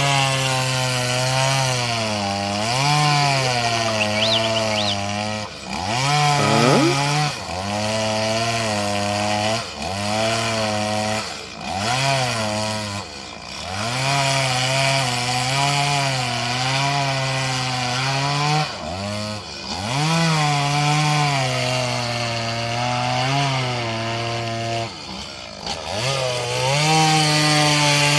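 Two-stroke chainsaw running and cutting into a crocodile's head. Its engine note sags again and again as the chain bogs under load, then climbs back, with a quick rev about six seconds in.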